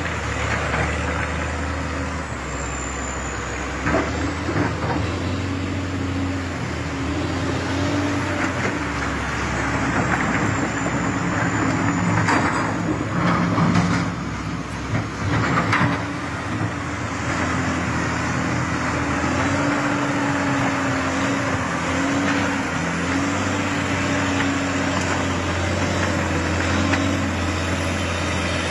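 Heavy diesel machine engine running, its pitch rising and falling as it works, with a few clanks and knocks in the middle.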